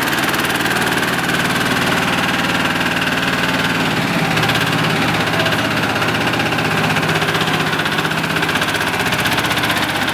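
Small double-drum vibratory road roller's engine running steadily, with a slight change in its note about four seconds in.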